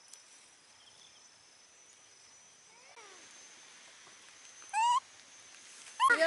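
A baby macaque gives one short, rising squeal about five seconds in, over quiet outdoor background with a faint steady high whine. A voice starts right at the end.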